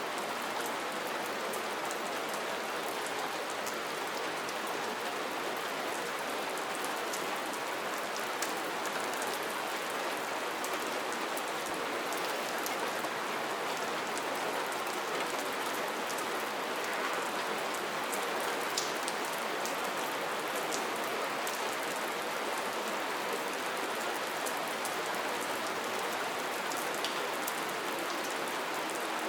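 Steady rain falling: an even hiss of rain with many faint, scattered drop ticks.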